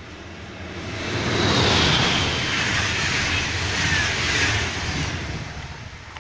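DB Intercity 2 double-deck train, hauled by a class 146.5 electric locomotive, passing at speed. The rush of wheels on rail swells about a second in, carries a high tone that falls in pitch, then fades as the train goes away.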